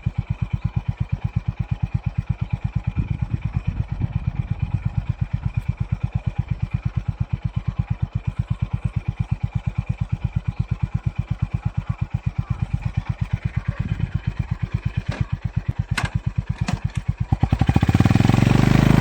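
Motorcycle engine idling with a steady, even, rapid low pulse. A few sharp clicks come near the end, and the sound then grows louder.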